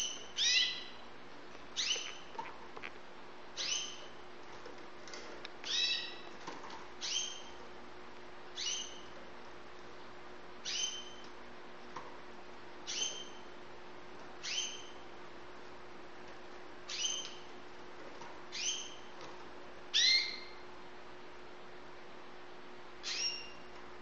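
White domestic canary calling: short, downward-sliding call notes repeated every one to two seconds, a dozen or more in all, with no continuous song.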